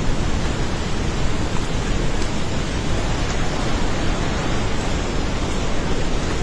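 A river in flood rushing past, heard as a loud, steady, unbroken wash of noise with a heavy low rumble.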